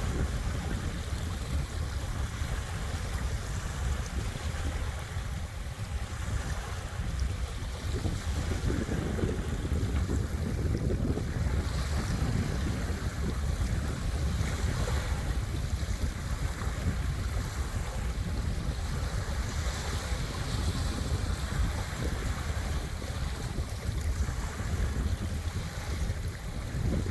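Small waves washing onto the beach at ebb tide, swelling and fading every few seconds, over a steady low rumble of wind buffeting the microphone.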